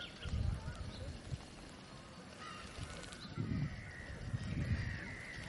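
Canada geese calling several times in the second half, over low gusting wind rumble on the microphone.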